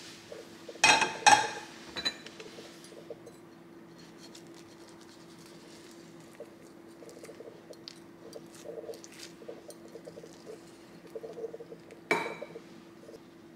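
Metal knife blade clinking against a ceramic plate: two sharp clinks close together about a second in, a lighter one just after, and another near the end. Soft small crackling sounds of the blade working through the omelette in between, over a faint steady hum.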